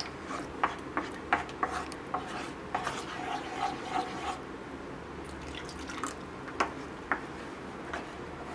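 Wooden spatula stirring thick, wet beetroot purée in a nonstick pan: soft scraping and squelching with scattered light taps of the spatula against the pan, several a second in the first half, fewer later on.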